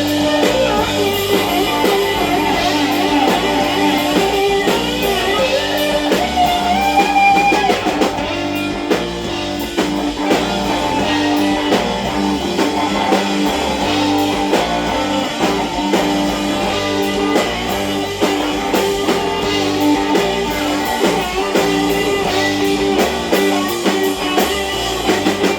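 Rock band playing an instrumental section live: guitar over a drum kit, without singing.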